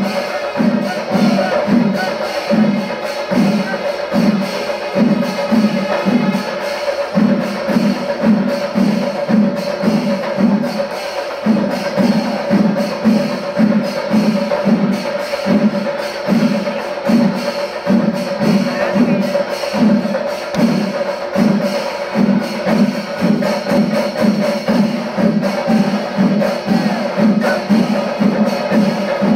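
Kerala chenda melam: massed chenda drums and elathalam cymbals playing the fast kalasam climax, a low drum beat pulsing about twice a second under dense stick strokes and cymbal clashes, with a steady held tone above. The low beat drops out briefly twice.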